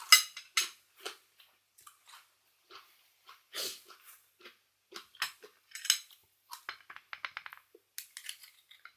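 Sounds of eating at a table: scattered sharp clinks of hard things against a plate, a few of them ringing briefly, among softer chewing and crunching noises. Around seven seconds in comes a quick run of small ticks, about ten a second.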